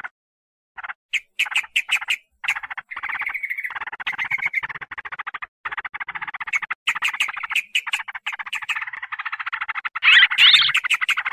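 Trucukan (yellow-vented bulbuls) calling in a rapid chatter of quick notes. There are a few short separate calls in the first couple of seconds, then an almost unbroken stream, loudest about ten seconds in. It is a lure call used to draw wild trucukan.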